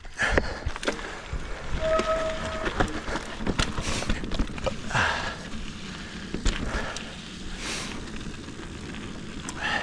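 Mountain bike ridden over a rough, rocky dirt trail: tyre noise with a steady run of knocks and clatter as the bike rattles over rocks, and a short squeak about two seconds in.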